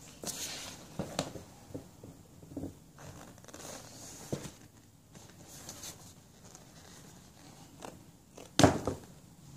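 Scattered knocks, taps and rustles of a toddler handling large stacking rings, with one much louder knock near the end as a ring is brought right up to the microphone.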